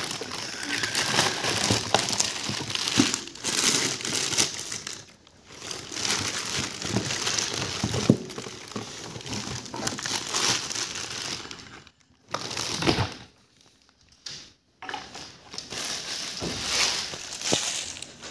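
Clear plastic bag crinkling and rustling as hands unwrap an engine from its packaging, stopping briefly about five seconds in and again for a few seconds after the twelve-second mark.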